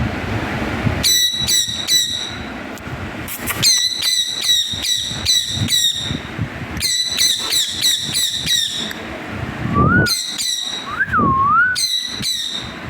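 Pet parrot screeching angrily in runs of rapid, harsh calls, about three a second, with short pauses between the runs. A wavering whistle comes in near the end.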